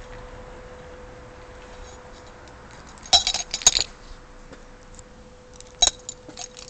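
A bunch of keys jangling and clinking in two short bursts, about three seconds in and again near the end, over a faint steady hum.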